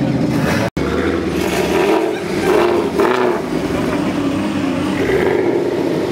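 Car engine running, with a couple of short revs about two to three seconds in.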